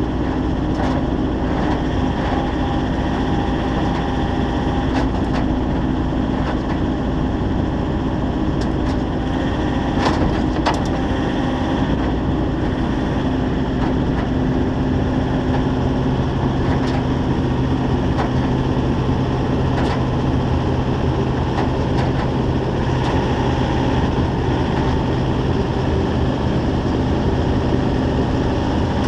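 A heavy diesel engine running steadily, its tone shifting lower about a third of the way through, with scattered sharp cracks and creaks, the loudest about ten seconds in.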